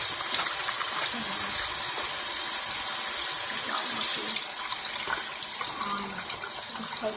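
Tap water running into a sink while hands are washed under it. It comes on abruptly and grows a little quieter about four seconds in.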